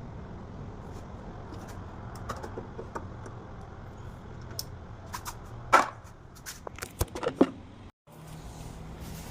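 Scattered sharp clicks and knocks, the loudest about halfway through and a quick cluster after it, over a steady low hum; the sound cuts out for a moment near the end.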